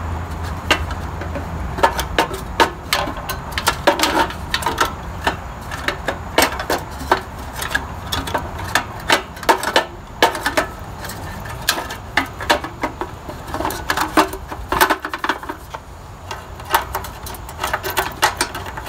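Thin sheet-metal control cabinet of a Dyna-Glo RMC-95 kerosene heater clicking, tapping and rattling irregularly as it is worked down into place on the heater's base.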